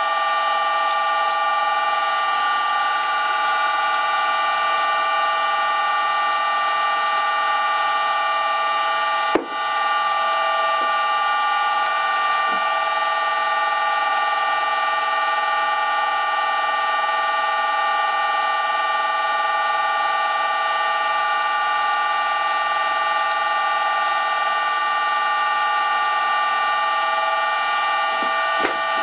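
An old metal lathe's headstock spindle running steadily in its freshly reassembled tapered bronze bearings, belt-driven by an electric motor, making a steady whine of several tones. This is a run-in test of the newly adjusted spindle, and little heat is building up in the bearings. There is one brief click about nine seconds in.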